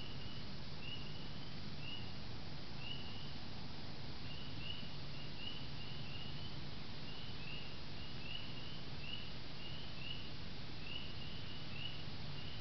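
A steady hiss and low hum from the trail camera. Over it, a night chorus of short, high, slightly rising peeps repeats about one or two times a second, from several small animals calling at once.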